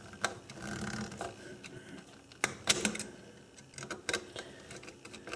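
Light, scattered metal clicks and taps of a small screwdriver and a wire's lug at a screw terminal on an old telephone's terminal board as a wire is fastened on, with a quick cluster of clicks a bit past halfway.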